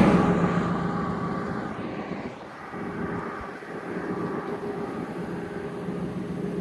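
A passing road vehicle fading away, followed by a steady, quieter engine hum from more distant traffic.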